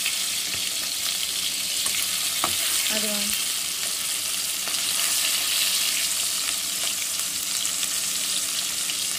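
Masala-coated fish pieces sizzling steadily as they shallow-fry in hot oil in a non-stick pan.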